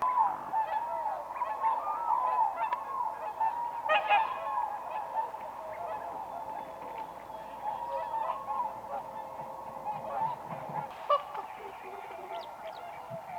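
Several whooper swans calling, their honking calls overlapping in a chorus that is loudest and busiest over the first few seconds and then carries on more evenly.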